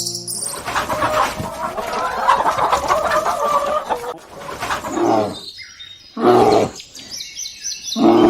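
Chickens clucking and chirping together for the first few seconds. After that comes a series of separate loud animal calls, each under a second long and spaced about a second apart.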